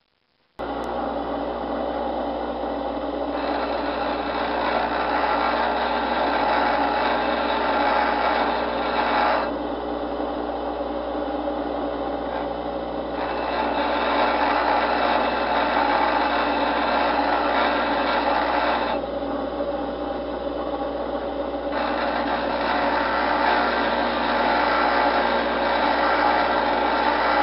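Millers Falls bench grinder's vitrified wheel grinding a steel chisel: a steady rasping hiss over a steady hum. It starts abruptly just under a second in and swells louder in three long spells, with lighter stretches between.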